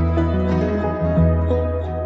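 Background music: plucked string melody over a sustained bass line.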